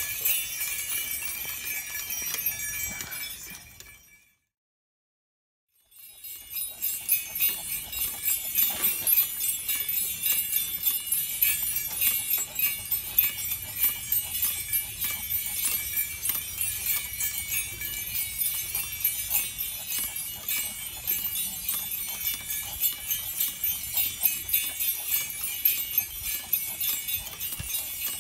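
Metal harness hardware jingling and clinking in a quick, even rhythm as a St Bernard trots, pulling a dog sulky along asphalt, with a low rolling rumble from the cart underneath and a thin high ring. The sound cuts out entirely for about two seconds near the start.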